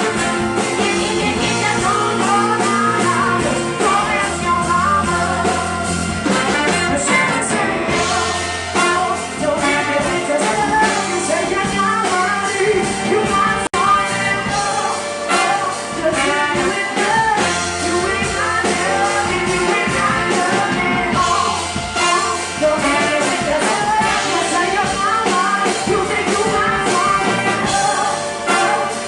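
Live soul band playing: a woman singing lead over the full band with a horn section, a steady beat underneath.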